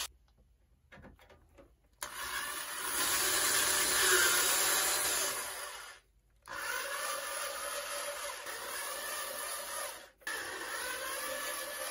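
Corded drill driving an M3 tap into the thin sheet-metal top of a plasma cutter's case, threading a hole. After about two seconds of quiet the motor runs in three spells of a few seconds each, with short stops between them.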